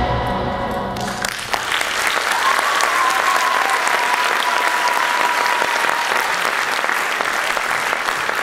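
Theatre audience applauding as the music ends about a second in; one voice calls out in a long held cry over the clapping.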